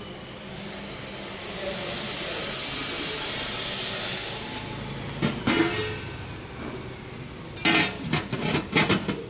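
Soft-serve ice cream machine running with a steady hiss, followed by a few sharp clacks and knocks, a pair about five seconds in and a quick run of them near the end.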